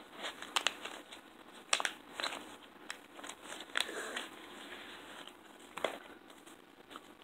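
Small clear plastic zip bag crinkling and rustling as it is handled and opened, with irregular sharp crackles.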